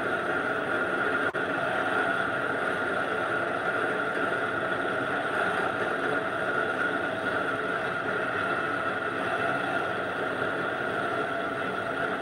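Small bench lathe running steadily, its spindle set to 250 RPM, as a boring bar is hand-fed into the workpiece to rebore the hole. Its motor and headstock give a continuous, even hum with a steady whine above it.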